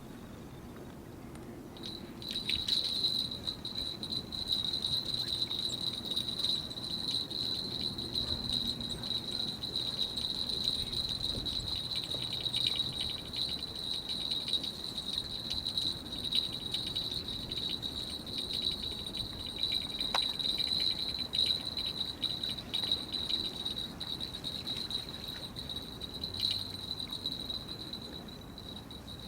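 A continuous high-pitched trill, like an insect's, that starts about two seconds in and keeps going without a break.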